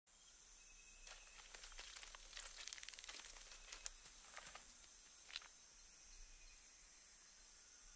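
Quiet forest-floor ambience: a steady high insect drone, with small dry rustles and crackles between about one and five and a half seconds in.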